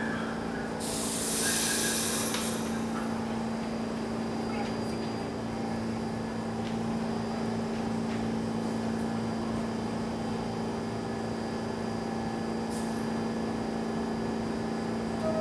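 Pullman Standard R46 subway train standing at the platform with its doors open, giving a steady hum. About a second in, a burst of compressed air hisses from it for about a second and a half, typical of the air brakes venting.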